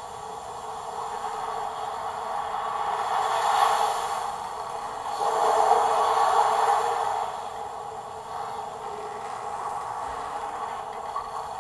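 Storm sound effect of wind and waves played back by an Arduino-controlled ship diorama, a hissing rush that swells and ebbs in slow surges a few seconds apart.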